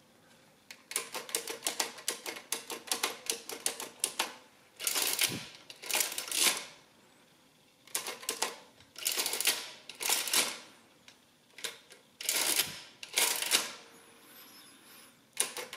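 Olivetti Summa 15 mechanical adding machine in use: sharp clicks of its number keys being pressed, then several longer mechanical clatters as the hand lever is pulled and the mechanism cycles and prints.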